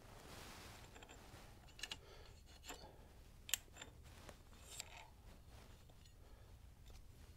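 Faint metallic clicks and light scraping as a pick tool pries the spring plate and clutch discs out of a Sportster's clutch basket; a few soft clinks stand out about two, three and a half and five seconds in.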